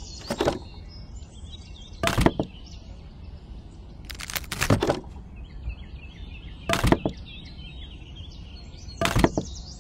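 Short dry wooden sticks clattering against each other as they are dropped onto a stacked load on a toy trailer, five brief clatters about two seconds apart.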